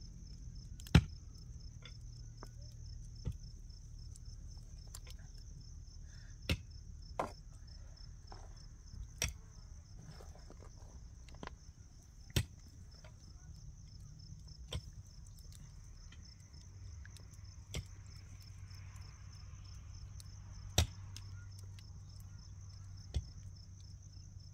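Sharp knocks or strikes at irregular intervals, about a dozen, the loudest about a second in, near the middle and near the end, over a steady high chirring of insects.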